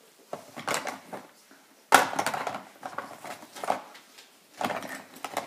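Makeup items being rummaged through and handled, small hard containers clattering in three bursts, the loudest starting sharply about two seconds in.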